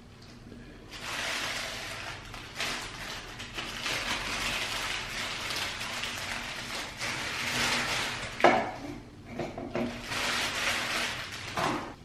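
Clear plastic bag crinkling as it is pulled off a milk frother, in uneven surges, with a sharper, louder crackle about eight and a half seconds in.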